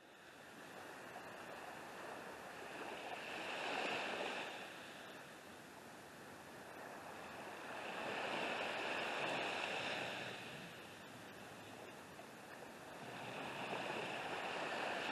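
Small waves breaking and washing up on a sandy beach, swelling and fading three times, about every five seconds.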